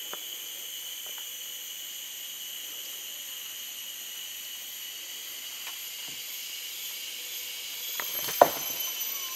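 Steady high-pitched drone of rainforest insects, with a few faint clicks and one sharp crack about eight seconds in.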